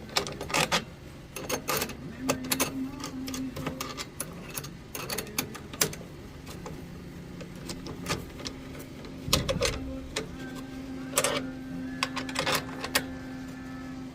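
Metal clinks and knocks as adapter rings and a lantern fount are handled and clamped in a homemade lantern vise, with a steady low hum running behind much of it.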